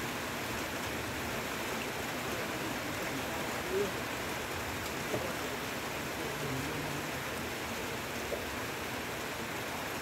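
Heavy rain falling steadily on dense leaves, a continuous even hiss.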